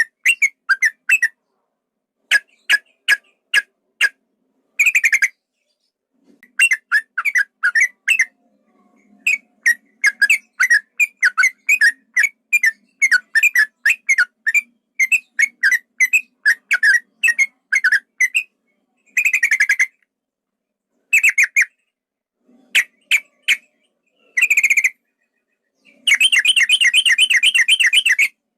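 Male sooty-headed bulbul singing: rapid runs of short, bending chirp notes in bursts broken by brief silences, ending in a long unbroken trill of about two and a half seconds near the end. This is the long rapid-fire song ('ropel panjang') that is played to provoke a male bulbul.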